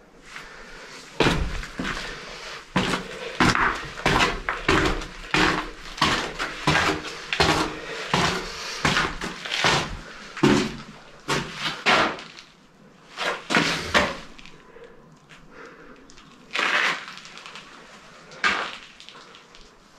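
Footsteps crunching and scraping on grit and rubble, irregular steps about one or two a second, thinning out to two last steps near the end.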